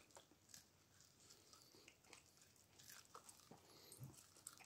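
Yorkshire terrier gnawing boiled corn off the cob: faint, irregular small clicks and crunches of teeth on kernels.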